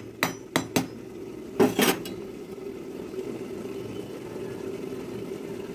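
Pot of rice boiling hard while being parboiled for biryani, not yet cooked through: a steady bubbling rumble. A few metal clinks of a slotted spoon against the pot come in the first second, and a short scrape follows about a second and a half in.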